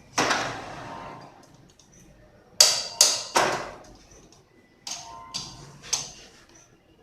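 Metal parts knocking and clanking against each other, about seven sharp strikes with short metallic ringing, as a workpiece is fitted and clamped in a lathe chuck.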